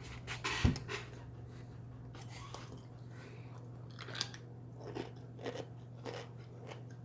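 Crunchy bread and butter pickle chips being bitten and chewed: a burst of crunching in the first second, then scattered crunches from about four seconds in, over a steady low hum.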